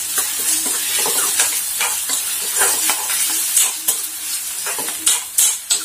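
Chopped onion and green chillies frying and sizzling in hot oil in a kadai, stirred with a steel spoon that scrapes against the pan in quick, irregular strokes, a few louder scrapes near the end.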